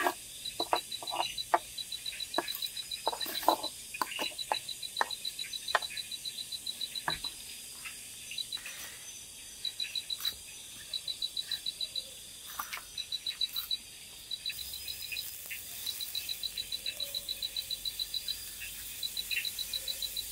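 A night-calling animal chirping in rapid, high trills about a second or two long, over and over. Scattered light clicks and knocks, most in the first few seconds.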